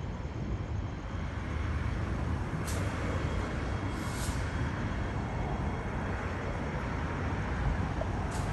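Steady rumble and running noise of a train, growing fuller about a second in, with several short high-pitched hisses on top.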